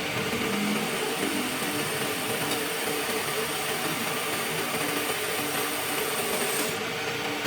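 Metalworking machine tool running steadily as a steel piece is machined, with a thin high whine that stops near the end.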